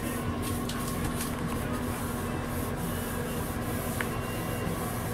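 Paintbrush swishing paint onto a wall in repeated short strokes, over a steady low hum.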